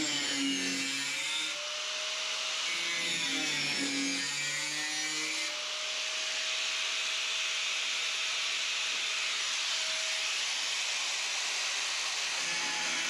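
Power cutting tool cutting sheet steel: a steady high grinding hiss over the motor's tone, which dips and recovers twice in the first few seconds as the tool bites, then holds steadier.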